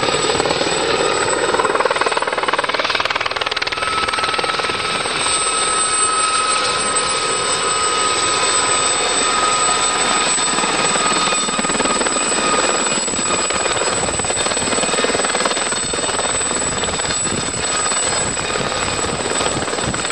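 Helicopter running steadily: a continuous rushing noise with a thin, steady high whine over it.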